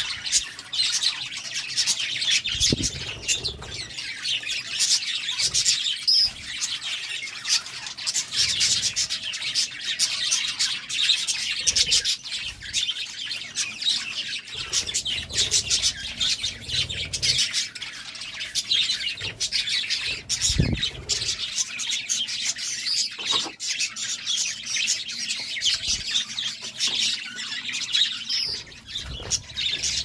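Budgerigars chattering and chirping continuously, a dense warbling flock chatter with no pauses, with a few brief low thumps.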